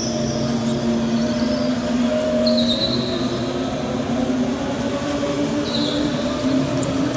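Several go-karts running past on a concrete indoor track, their motors making a steady, slightly wavering hum, with three short high tyre squeals as karts take the corners.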